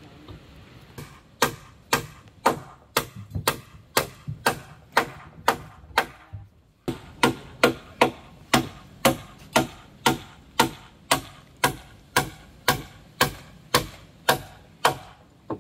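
Steady hand hammering, a hammer driving nails into wood at about two blows a second, with a short break about six and a half seconds in.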